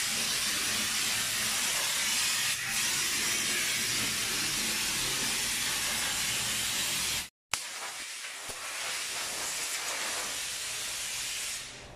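Steady hiss of a pressurized wash spray from a hand-held spray wand, spraying into a car's engine bay. It drops out for a moment about seven seconds in, then goes on more quietly until just before the end.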